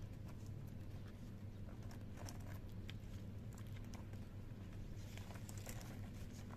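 Faint scratchy clicks and scrapes of a tortoise moving over paving stones, over a steady low hum.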